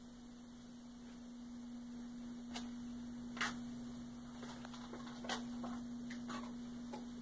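A steady low electrical hum with faint, irregular ticks and clicks scattered over it from a few seconds in.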